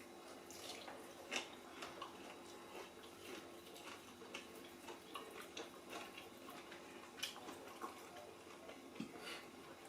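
People eating: faint, scattered chewing and mouth clicks with light taps, over a steady low hum.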